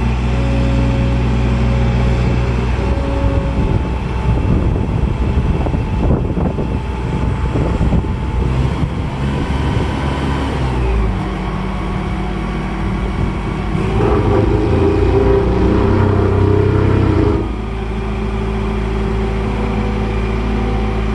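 Hamm HD90K vibratory tandem roller's diesel engine running while the roller is driven, with a rough, rattly stretch in the middle. It gets louder a little past the middle, then drops back abruptly for the last few seconds.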